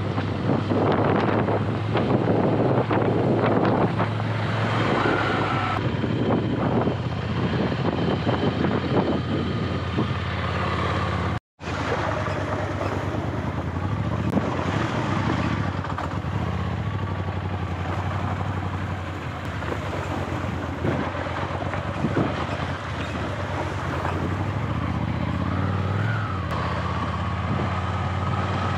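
Ducati Scrambler motorcycle engine running at a steady, low-revving pace on a rough off-road track, with wind buffeting the microphone. The sound cuts out for a split second about a third of the way in.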